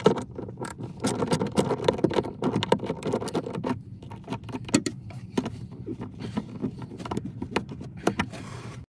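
Socket ratchet clicking rapidly in bursts, with metal clinks of an 11 mm socket on the nut of a car battery's negative terminal as it is loosened to disconnect the battery.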